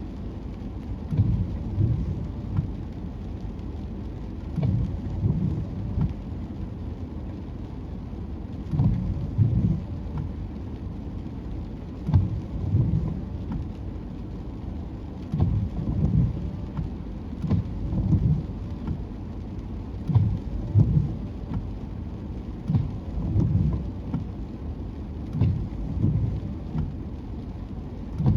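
Wind buffeting the camera microphone in irregular low rumbling gusts every second or few, over a steady wash of surf.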